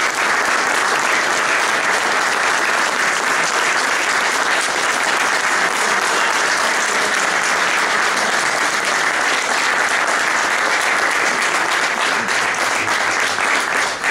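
Sustained applause from a standing crowd clapping, dense and steady throughout.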